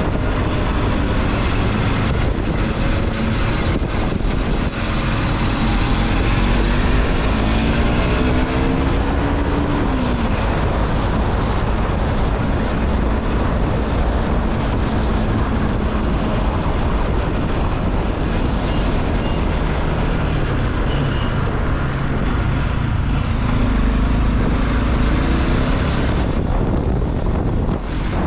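Car driving through city traffic: a steady rumble of engine and road noise, with an engine's pitch rising and falling a few times.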